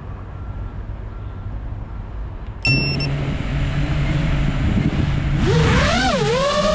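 FPV quadcopter starting up on the ground: after a low background rumble, a short beep sounds and its motors start, idling with a steady hum. About two-thirds of the way in, the motor whine climbs and dips in pitch as the throttle is pushed for take-off.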